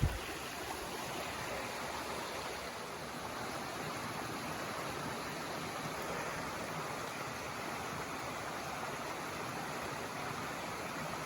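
Mountain river running over rocks: a steady, even rush of water.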